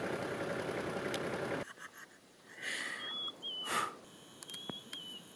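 Vehicle engine idling steadily until it cuts off abruptly about one and a half seconds in. Then quiet outdoor air with a bird giving short, wavering high notes, two pairs of them, and one sharp click.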